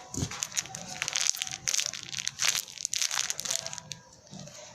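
Homemade paper squishy being squeezed over and over, the paper crinkling and crunching in quick crackles that stop about four seconds in.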